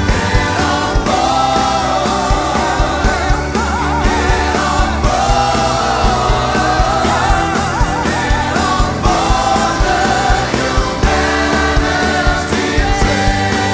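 Live band with singers performing a song, a sung melody carried over a steady drum beat and bass.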